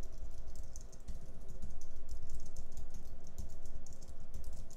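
Fast typing on a computer keyboard: a quick, irregular run of key clicks.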